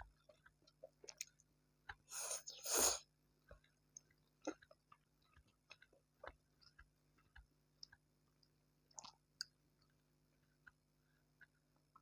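Close-miked eating sounds of a person chewing fried instant noodles and tempura: soft wet chews and small mouth clicks. About two seconds in comes one louder burst of noise lasting about a second.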